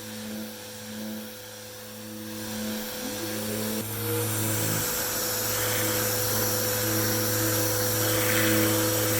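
Handheld electric power tool spinning up about three seconds in and then running steadily with a high whine, over quieter background music at the start.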